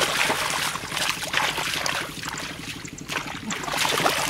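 Hands splashing and churning through shallow muddy water, groping in the mud, in irregular bursts. A steady low hum runs underneath.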